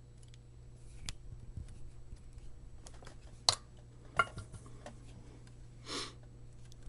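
Small clicks and taps of hand soldering work on a circuit board: a few sharp ticks, the loudest about three and a half and four seconds in, and a brief hiss about six seconds in, over a steady low hum.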